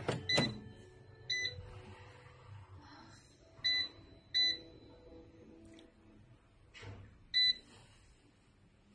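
Mayer digital air fryer's touch control panel beeping: five short electronic beeps at uneven intervals as its buttons are pressed. A knock near the start, as the fryer basket is pushed shut, comes with the first beep.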